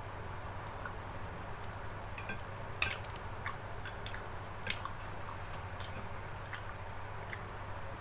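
A person eating close to the microphone: soft chewing and squishing of food with scattered small clicks, the sharpest about three seconds in, over a steady low hum.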